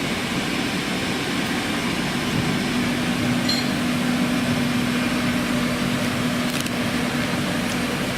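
Ginger washing machine running: a steady mechanical whirr and rush, with a steady motor hum coming in about three seconds in and a couple of faint ticks.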